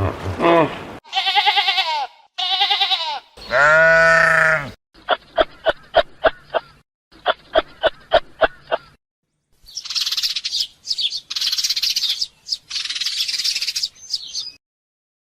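A run of different animal calls in quick succession: two short bleating calls and a longer, drawn-out one, then two series of rapid clicks, then several seconds of high bird chirping.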